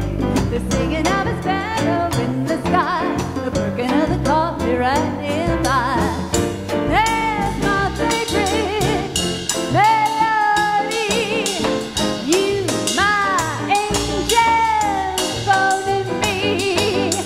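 Live dance band playing a Latin-rhythm arrangement of a swing-era song, with horns, drums and a singer. Held notes scoop up into vibrato every few seconds over a steady beat.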